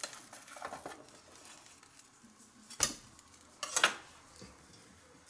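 Two sharp clacks of kitchen utensils against dishware, almost three seconds in and again about a second later, the second a brief clatter.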